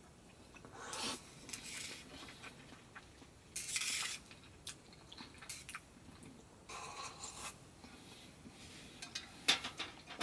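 Camp cookware and utensils clinking and scraping in a handful of short bursts, with scattered sharp clicks between them.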